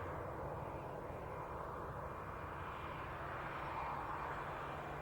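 Jet airliner engines running at low power, a steady wash of engine noise that swells slightly a few seconds in.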